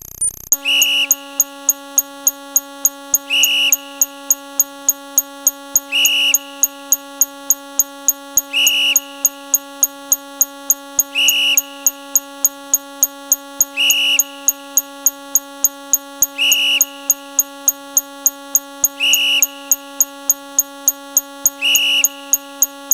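Looping electronic sound effect: a steady buzzing drone with rapid high ticks about three times a second, and a louder beep about every two and a half seconds.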